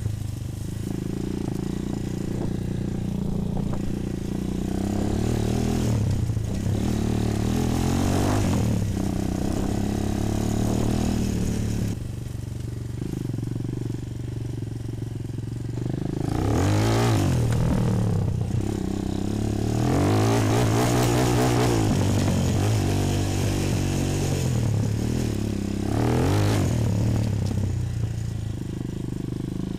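Bashan 250 quad's single-cylinder four-stroke engine heard close up while being ridden, revving up and down again and again with the throttle. There are several sharp rises in pitch, the strongest about two thirds of the way in.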